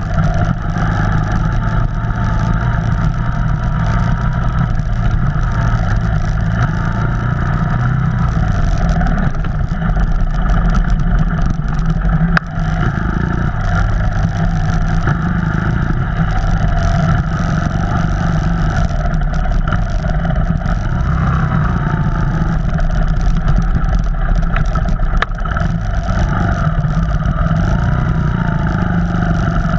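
Off-road vehicle engine running under way, a steady loud drone with small rises and falls in revs, heard close as if from on board.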